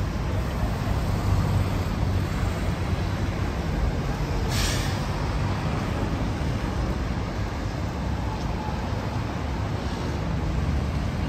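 City street traffic: a steady low rumble of passing vehicles, with one short hiss about four and a half seconds in.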